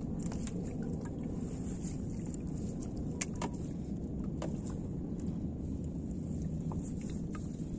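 Steady low rumble on a small fishing boat out on the lake, with a few light clicks and taps; the sharpest come about three seconds in and again about a second later.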